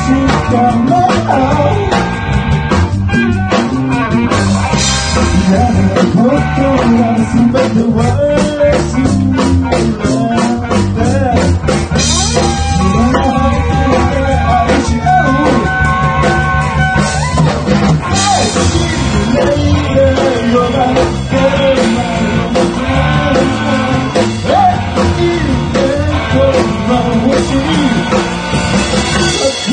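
Live rock band playing: electric guitar, bass guitar and drum kit, with a male lead vocal singing over them.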